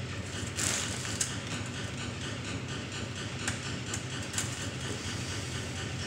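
An engine oil dipstick being drawn out and wiped with a rag: a short rustle about half a second in and a few light clicks, over a steady low hum.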